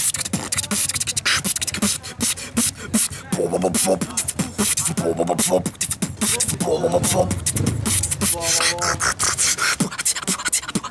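Beatboxing: a dense run of rapid mouth-made drum clicks and snares, with a few short hummed or sung tones about halfway through.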